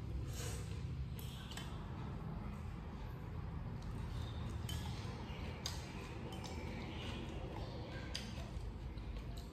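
Someone eating rice noodles with chopsticks: noodles sucked in and chewed, with scattered light clicks of chopsticks against the bowl and tray, over a low steady hum.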